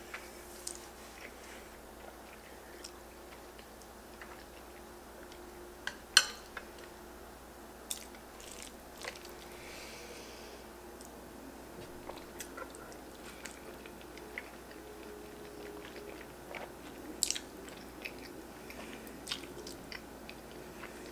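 Close-miked eating of instant ramen noodles with bacon bits: soft chewing and mouth sounds, with a few sharp clicks scattered through. The loudest click comes about six seconds in.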